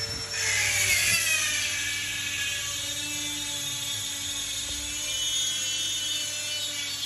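Electric power carving tool running on wood with a high-pitched whine. Its pitch falls over the first couple of seconds, then holds steady.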